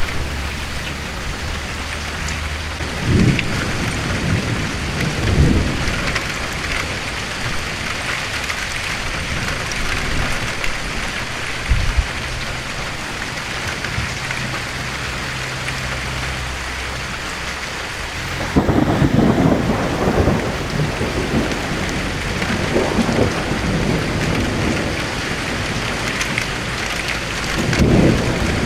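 Thunderstorm: steady rain hiss, with a few short rumbles of thunder in the first half and one sharp crack, then a long rolling peal of thunder from about two-thirds of the way in to the end.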